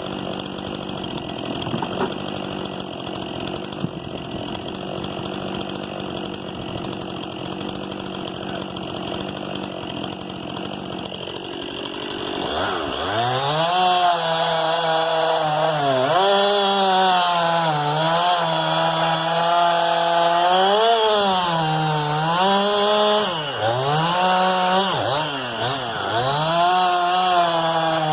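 Stihl MS 261 C-M two-stroke chainsaw running steadily in wood. About twelve seconds in it revs up and gets louder, then its engine pitch repeatedly dips and recovers as the chain is loaded in the cut.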